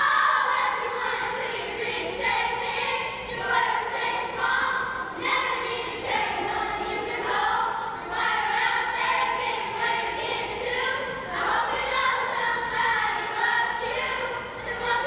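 Children's choir singing a song together in held, sustained phrases.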